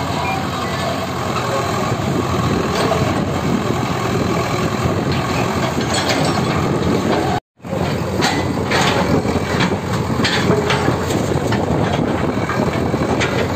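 JCB backhoe loader's diesel engine running under load as its bucket works through brick and concrete rubble, with scattered knocks and clatter of debris in the second half.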